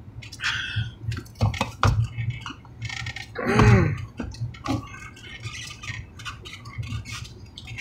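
Takeout food containers and utensils being handled: a run of clicks, taps and rustles, with a brief voice sound about three and a half seconds in.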